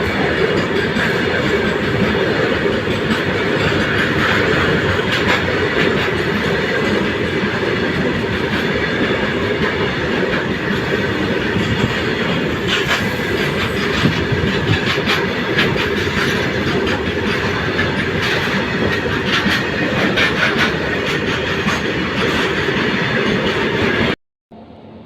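Indian Railways goods train passing close by, its wagon wheels clattering steadily over the rail joints with a faint squeal. The sound cuts off abruptly near the end.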